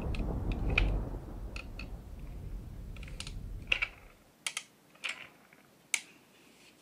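Wooden toy train engines clicking and clacking as they are lifted out of a wooden roundhouse: a dozen or so sharp, irregular clicks. A low thunder rumble fades out under them about four seconds in.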